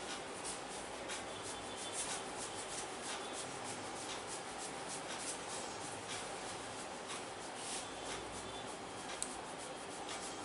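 Hands rubbing and kneading a person's scalp and hair during a head massage: a steady rustle with frequent short scratchy strokes, and one sharp click about nine seconds in.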